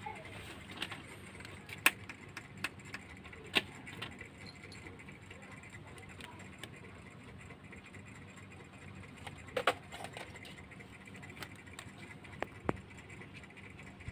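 Scattered light clicks and taps, with a few sharper knocks, as a kitten clambers over a glass-topped shop counter among glass jars, a pen and a calculator, over a steady low background hum.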